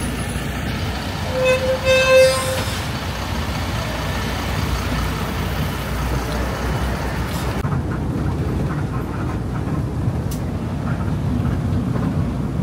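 Steady street traffic rumble with a vehicle horn tooting once, briefly, about two seconds in.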